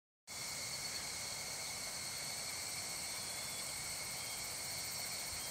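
Chorus of insects in a rice paddy, a steady high-pitched trilling at several pitches at once that cuts in just after the start.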